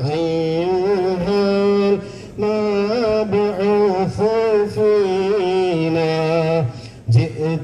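Background music: a single voice singing a slow melody in long held, ornamented notes, with short breaths between phrases.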